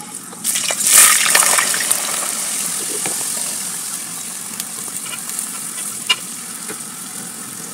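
Raw potato chips sizzling in hot oil in a metal pot: a loud hiss that jumps up about a second in as they go into the oil, then settles into a steady frying sizzle. A slotted metal spoon stirring them clinks against the pot a few times.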